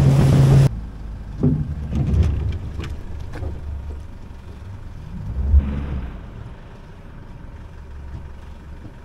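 An outboard motor running at speed with wind and water noise, cut off sharply in the first second. Then a low engine rumble from the Isuzu D-Max ute, with a few knocks and a thump about halfway through.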